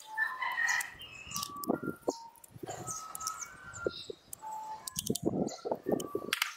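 Birds chirping in the background over metallic clicks and knocks of a chuck key being turned to tighten a lathe chuck, with a cluster of heavier knocks about five seconds in.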